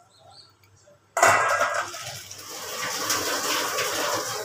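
Kitchen tap running into a stainless steel sink, starting suddenly about a second in after near silence.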